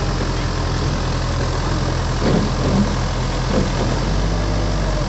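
Tracked excavator's diesel engine idling with a steady low hum.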